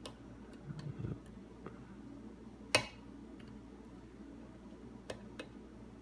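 Peterson Gem hook pick clicking against the security pins inside a Concept mortise lock cylinder under tension: scattered light metallic clicks, one sharp loud click a little before halfway, and two quick clicks near the end. A brief low rumble of handling about a second in.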